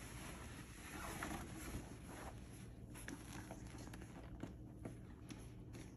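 Faint rustling and light handling noises of a handbag being drawn out of its cotton dust bag and laid down, a little louder a second or two in.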